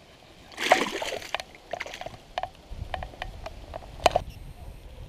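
A splash in shallow weedy water about a second in, as a largemouth bass is let go from the hand, followed by a run of small sharp clicks and drips.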